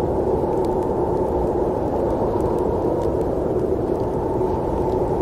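Snowstorm wind ambience: a steady, low, muffled rushing with no gusts or breaks.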